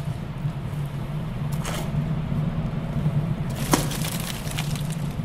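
Fire burning in a stove: a steady low rumble, broken by a few sharp crackles, the loudest just before four seconds in.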